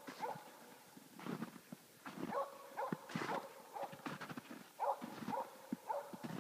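Footsteps crunching through snow, with short high calls repeated about twice a second.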